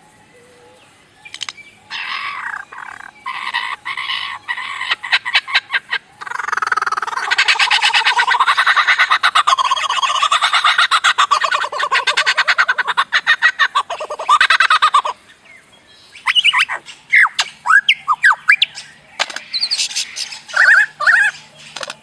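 Superb lyrebird singing a fast, varied run of sharp clicks and rattles, then a long, dense, rapidly pulsing passage that wavers in pitch. After a brief pause about fifteen seconds in, it switches to quick, steeply sweeping whistles mixed with clicks.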